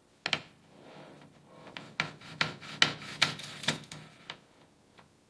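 Scrubbing on a rusty metal tool: a run of short, rasping strokes, about two to three a second, loudest in the middle.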